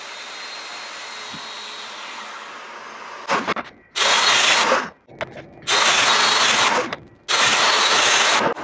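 Festool Domino joiner plunging three times into the edge of a zebrawood board to cut mortises for loose tenons: three loud bursts of about a second each, starting and stopping sharply, after a steady hiss in the first few seconds.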